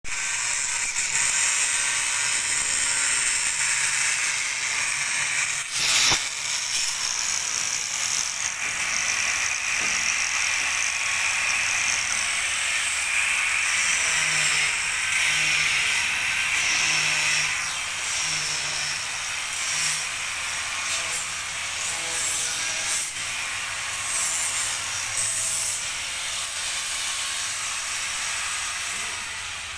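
Handheld electric angle grinder running and cutting through blue PVC pipe: a steady, high-pitched grinding that eases off near the end.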